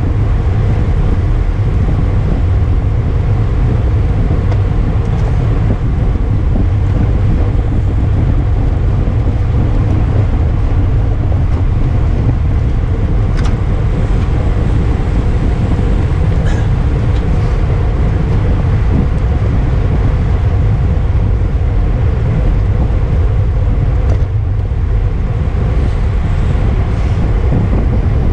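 Steady, loud wind rush buffeting the microphone of a camera riding on a racing bicycle at speed.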